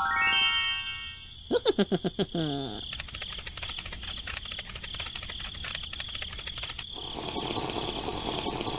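Edited-in cartoon sound effects: a twinkling chime, then a short run of quick squeaky calls falling in pitch, then a long, fast, even clicking rattle that turns into a hiss near the end.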